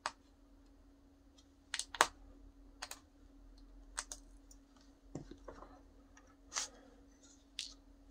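Irregular light clicks and clacks of 3D-printed plastic pistol parts and a thin metal rod being handled against each other, the loudest about two seconds in, over a faint steady low hum.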